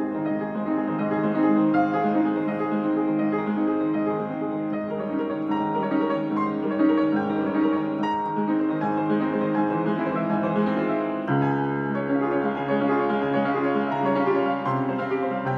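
Upright acoustic piano played solo, a flowing piece with notes sounding continuously; deeper bass notes come in about eleven seconds in.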